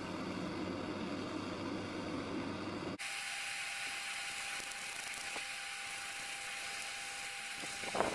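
Small gas blowtorch flame hissing steadily while steel hinge plates are heated for brassing; the hiss changes suddenly about three seconds in, and a light clatter of the metal pieces comes near the end.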